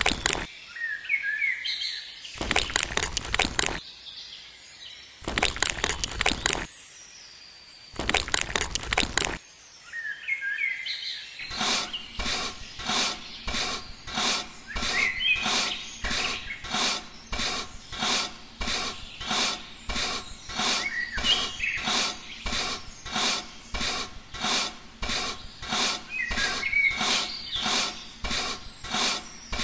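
Rhythmic rasping strokes: four long, slow strokes, then, from a little over a third of the way in, a steady run of short strokes about twice a second. Birds chirp in the background.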